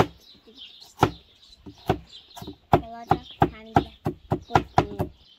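A cleaver chopping onion on a wooden cutting board: a string of sharp knocks, a few spaced strikes at first, then quicker strokes of about three a second.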